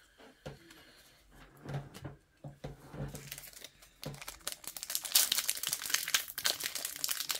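Soft handling of a stack of trading cards, then the crinkling and tearing of a trading card pack's wrapper being picked open. The crackling gets dense and loud from about halfway through.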